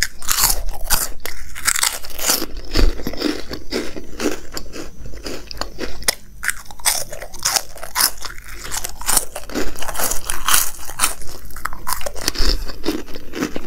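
Crisp corn ring puffs (Crax rings) being bitten off the fingers and chewed, a run of many sharp, dry crunches.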